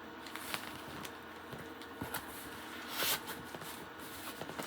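Rustling and small clicks of yarn skeins and packaging being handled and taken out of a shipping box, with one louder rustle about three seconds in.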